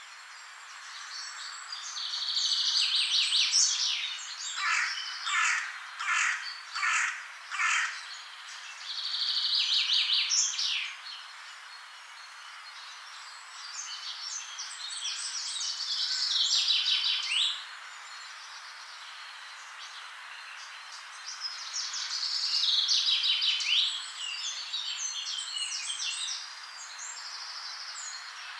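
Songbird singing in about five bursts of song a few seconds apart, each a rapid high trill. The first burst ends in a run of about six loud repeated notes. A steady faint hiss lies underneath.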